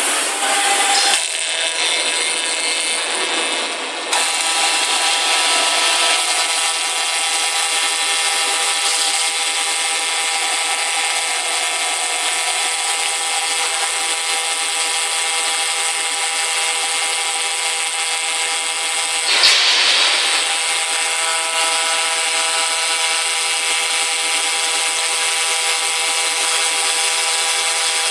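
YAG laser cutting machine cutting 6 mm steel plate: a steady hiss with a high, even machine whine over it. There is one brief louder rush about 19 seconds in.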